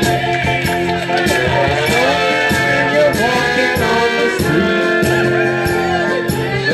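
A man singing karaoke into a handheld microphone over an amplified backing track with a steady beat.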